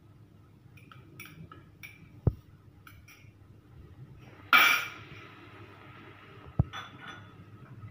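Light clinks of a spoon and containers, then mustard seeds dropped into hot coconut oil in a clay pot, with a sudden loud sizzle about halfway through that fades away over a couple of seconds. A dull knock comes twice.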